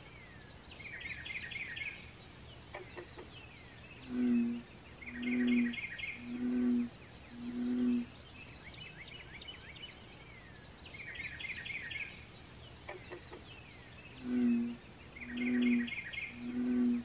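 Birds chirping in quick trilling phrases while a bullfrog calls in two series of deep notes about a second apart. The bullfrog's notes are the loudest sound.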